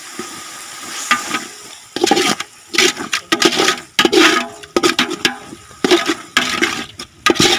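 A steel ladle stirring and scraping thick frying masala against the side of a metal cooking pot, with a hiss under it. From about two seconds in come quick repeated strokes, two to three a second.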